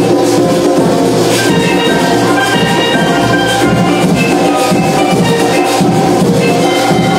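Steel pan band playing a tune, the ringing notes of several pans over hand drums keeping the beat.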